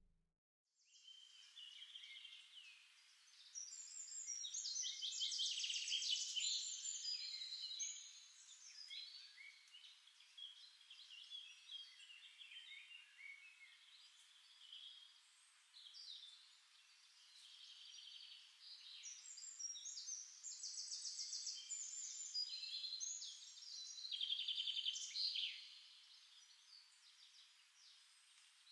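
Songbirds chirping and trilling, faint and thin, with no low sound beneath. The calls overlap, and bursts of fast trills come about four seconds in and again around twenty seconds in.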